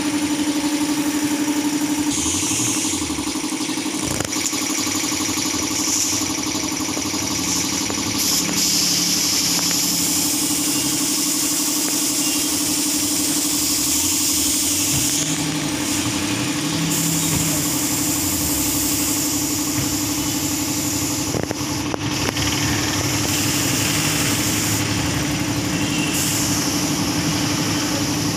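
A motor running steadily with a constant hum.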